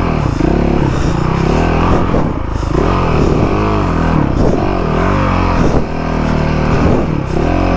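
2017 Honda CRF450R's single-cylinder four-stroke motocross engine being revved up and down over and over, its pitch rising and falling about once a second as the throttle is worked.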